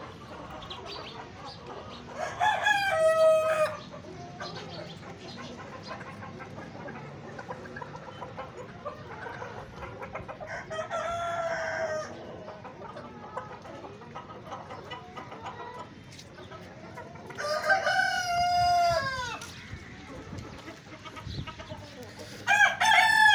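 Australorp roosters crowing four times, the second crow softer and the last starting near the end, over the steady clucking of the Australorp flock.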